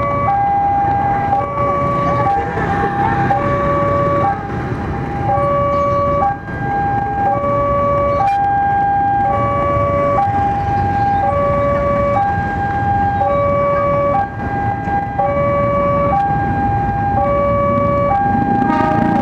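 Railway level-crossing warning alarm sounding a steady two-tone electronic ding-dong, alternating a high and a low tone, each held just under a second, over idling motorcycle engines.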